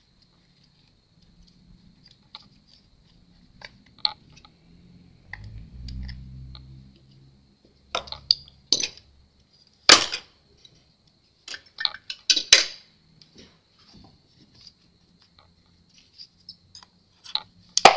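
Irregular sharp clicks and taps of a plastic laptop bottom cover and small screws being handled while its Torx screws are taken out, growing louder and more frequent from about eight seconds in. A brief low rumble comes around six seconds.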